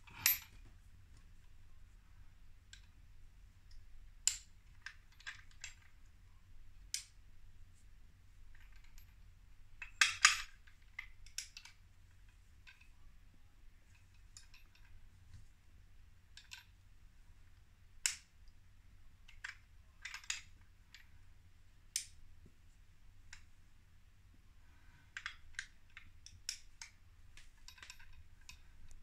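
Scattered sharp metallic clicks and clinks as a 10 mm stainless steel locking collar is handled, unlocked and locked, including the click of its spring-loaded brass locking plate being pushed home. The loudest is a quick cluster of clicks about ten seconds in.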